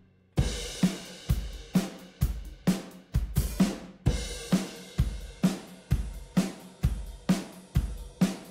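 A recorded rock drum kit plays a steady beat of kick drum, snare, hi-hat and cymbals on a mix's drum bus. It is run through a Rupert Neve Designs 5254 diode-bridge compressor while the compressor's settings are being dialed in. The beat starts after a short gap just after the start.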